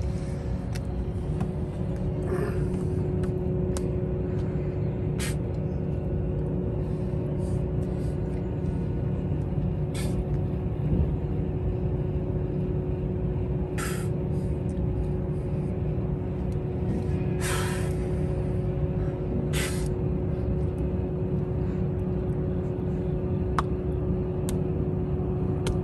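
Steady low mechanical rumble with a constant hum, broken by about five short hisses.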